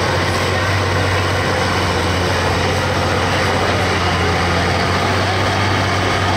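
Fendt 930 Vario tractor's six-cylinder diesel pulling hard and steady against a tractor-pulling sled, a low even drone that holds at one pitch: the engine is held under heavy load as the sled's weight builds up.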